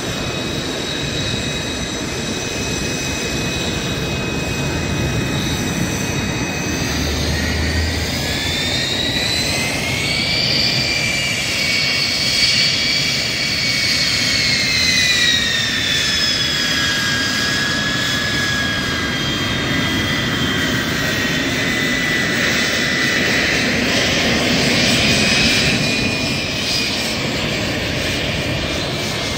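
Jet engines of taxiing L-39 Albatros and L-29 Delfin race jets: a steady high whine over a rushing roar. The whine rises and grows loudest as a jet taxis close past midway, then falls away, and swells again near the end.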